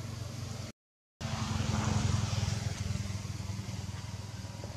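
A steady low engine hum with hiss over it. It drops out completely for about half a second near the start, then comes back a little louder.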